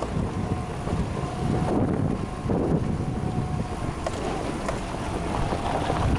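Four-wheel-drive vehicle's engine running under load on a rough mountain dirt track, a steady low rumble with a faint whine, a few knocks from the track, and wind buffeting the microphone.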